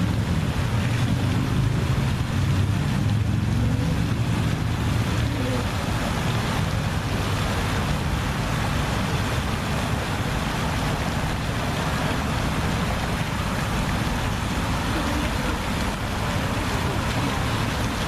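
Steady rushing of wind and water, with a low rumble that is strongest for the first few seconds and then evens out.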